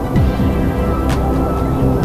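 Background music with a beat and deep bass notes that slide down in pitch, one shortly after the start and another at the end.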